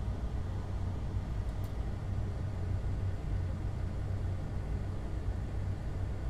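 Steady low hum and rumble of something running, like a fan or motor, at an even level.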